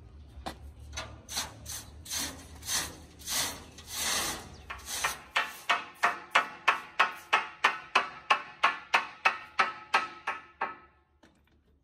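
A hammer knocking packing blocks and wedges under a large marble block: scattered blows at first, then an even run of about three sharp, ringing strikes a second that stops shortly before the end.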